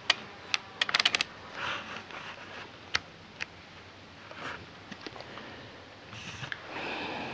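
Small hard plastic clicks of camera buttons and a settings dial being worked: a couple of single clicks, a quick run of about eight clicks about a second in, then two more single clicks around three seconds in.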